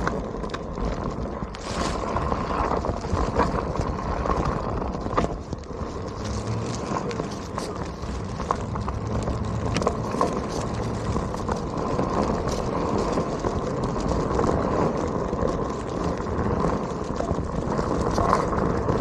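Onewheel electric board rolling steadily over rough ground: continuous tyre and road noise with a faint steady hum from the hub motor, broken by frequent sharp ticks of small rocks kicked up against the board.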